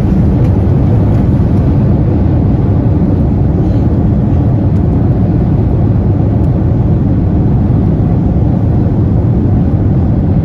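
Airliner cabin noise heard from inside the cabin: a steady, loud, low rumble of engines and airflow.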